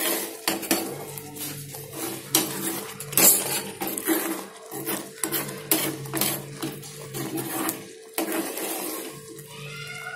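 Steel ladle stirring thick tamarind-jaggery chutney in a stainless steel kadai, with irregular clinks and scrapes against the pan, over a steady low hum.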